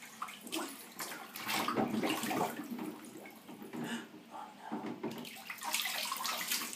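Bathwater splashing and sloshing in a baby bathtub as a hand scoops and pours water, in irregular splashes that die down in the middle and pick up again near the end.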